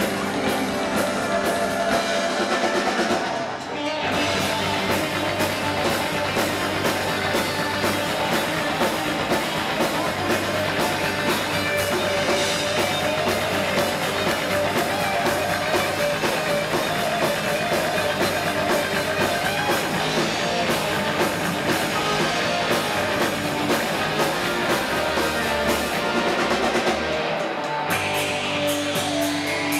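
Rock band playing live: electric guitars over a drum kit, with a brief drop-out about three and a half seconds in before the full band comes back in.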